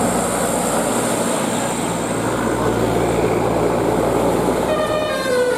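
A large bus's diesel engine runs loudly with road noise. Near the end a multi-tone telolet horn starts playing a tune in quick stepped notes.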